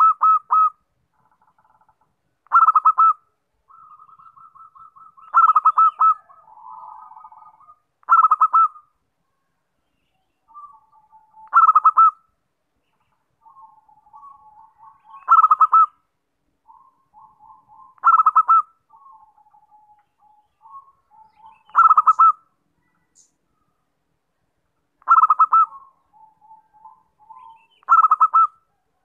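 Zebra dove (perkutut) singing: a short, loud burst of rapid cooing notes about every three seconds, about ten in all, with softer, lower strings of coos between them.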